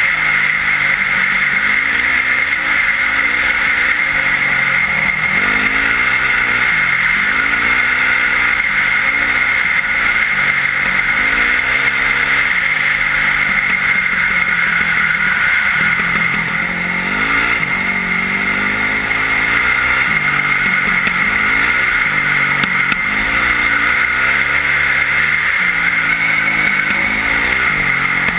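Yamaha WR450F's single-cylinder four-stroke engine with an Akrapovic exhaust, riding hard on snow. The revs repeatedly climb and drop as the rider works the throttle and gears, over a steady hiss.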